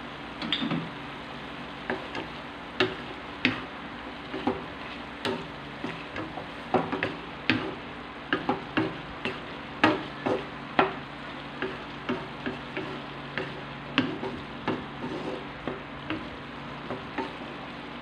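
Diced pork sizzling in a metal wok while a wooden spatula stirs it, knocking and scraping against the pan in irregular clacks, about two a second, over a faint steady low hum.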